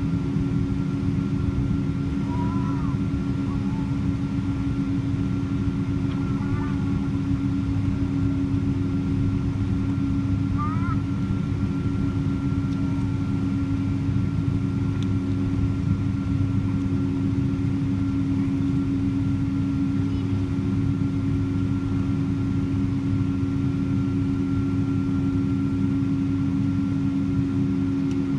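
Jet airliner cabin noise while taxiing: the engines at taxi power make a steady low rumble with a constant hum over it.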